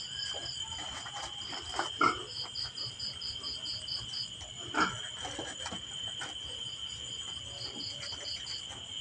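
Night insects, crickets, chirping: a steady high drone with a pulsing chirp about five times a second. A couple of brief, louder short sounds come about two and five seconds in.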